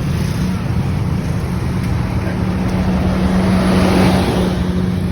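Tour bus diesel engine running with a steady low hum, its noise swelling about three to four seconds in and then easing.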